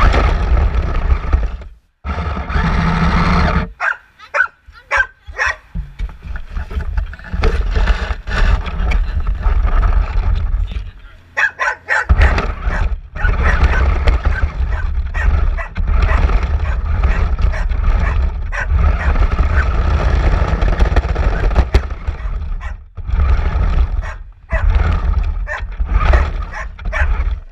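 A dog barking and growling repeatedly at close range, over the rumble of a small RC car driving over rough asphalt. The rumble stops and starts several times as the car halts and moves off again.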